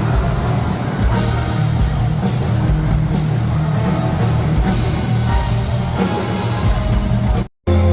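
Loud rock music with a heavy drum beat and guitar, cut off briefly near the end by a moment of silence.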